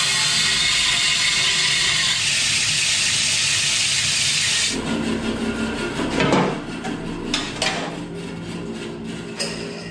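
A wood-cutting band saw runs at high blade speed, cutting through a cast-aluminium Honda K24 valve cover with a loud, steady hiss. The cut stops abruptly about five seconds in. The saw motor keeps humming while the aluminium cover knocks and clinks against the saw table as it is lifted off.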